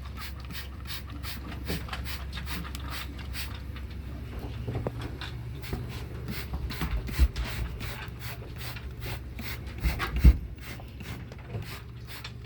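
Cleaning a dog pen floor with bleach water: a run of short rasping strokes, about two to three a second, over a steady low rumble, with two heavier thumps about seven and ten seconds in.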